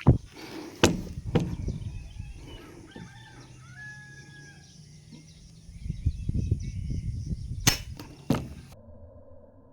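Sharp gunshots: three in quick succession in the first second and a half, then two more about half a second apart near the end, with faint bird calls between them.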